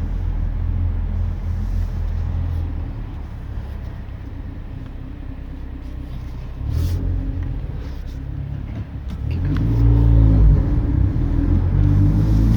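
Exhaust of a tuned 2016 Ford Focus ST with a catless downpipe and 3-inch catback: a low rumble at light throttle, one sharp pop about seven seconds in, then the engine revs up about nine and a half seconds in and runs louder.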